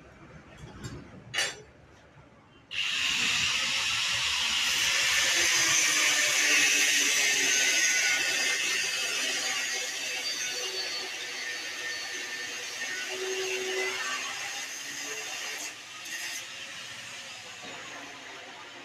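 A couple of sharp clicks, then about three seconds in a power tool starts abruptly on steel and runs for about fifteen seconds with a loud, steady hiss, slowly easing off near the end.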